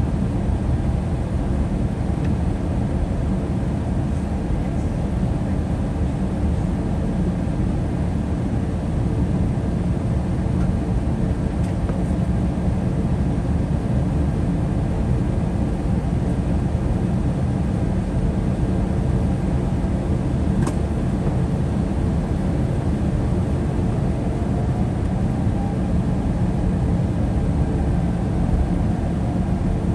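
Steady low rumble of an Airbus A321-200 cabin during taxi after landing, the engines at idle. There is one short click about two-thirds of the way through.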